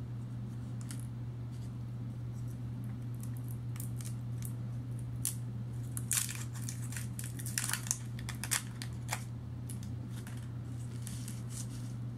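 Starburst chew wrappers being peeled open and handled by fingers: irregular small crinkles and crackles, busiest around the middle, over a steady low hum.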